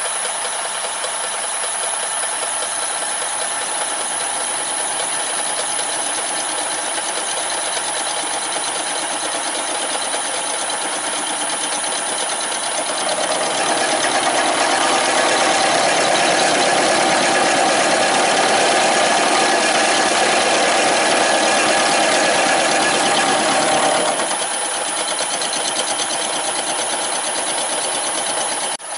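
Milling machine running, its end mill cutting the profile of a crank web held on a rotary table. The sound is steady, growing louder for about ten seconds in the middle.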